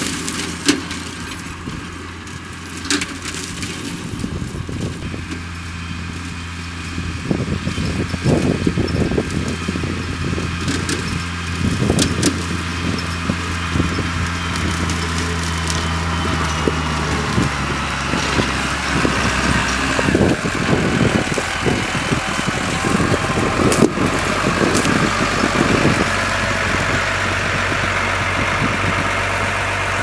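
Tractor diesel engine running under load while a tractor-drawn corn-stalk chopper shreds stalks with a crackling rattle. It grows louder as the tractor comes closer, passing close near the end.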